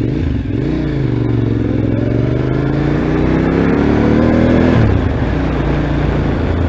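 Motorcycle engine accelerating, its pitch climbing steadily for about four seconds, then dropping abruptly about five seconds in, over a steady rush of wind and road noise.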